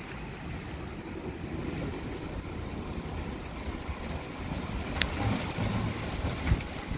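Strong storm wind gusting in a low, uneven rumble, with a single sharp click about five seconds in.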